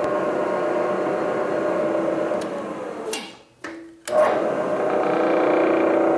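Milling machine spindle running slowly while power-tapping M6 holes with a spiral point tap, a steady machine whine with several held tones. It cuts out a little past halfway and starts again with a click about a second later.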